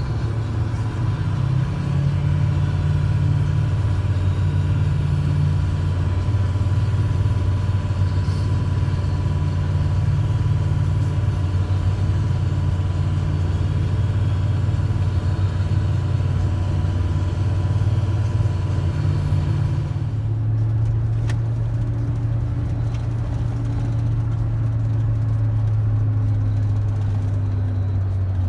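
A vehicle engine running steadily with a low drone. About twenty seconds in, its sound shifts to a lower, smoother hum.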